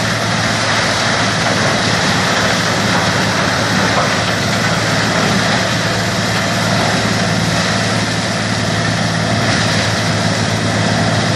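A grinder machine running steadily: a constant low hum under a dense rushing noise, with no change in speed.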